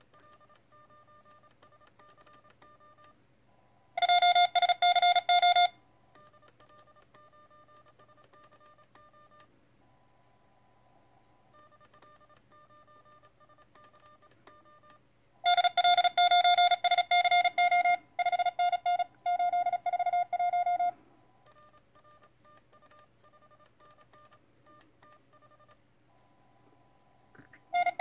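Morse code from a QRP Labs QCX+ CW transceiver through a small attached speaker. There are three stretches of loud keyed sidetone, about 4 seconds in, a longer one from about the middle, and again at the end, as the operator sends with a Morse paddle. Between them come fainter, higher-pitched Morse signals from other stations being received during a contest exchange.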